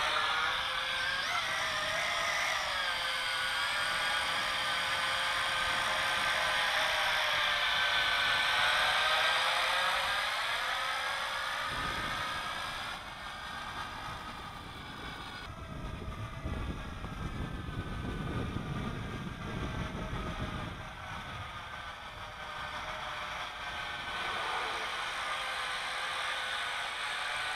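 JJRC H26 quadcopter's motors and propellers whining, the pitch of their several tones sliding up and down together as the throttle is worked. Wind buffets the microphone with a low rumble in the middle.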